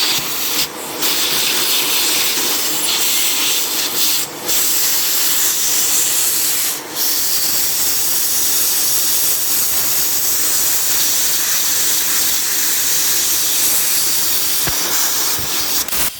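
Vacuum cleaner running: a steady, loud rushing hiss of suction, briefly dipping three times as the airflow changes.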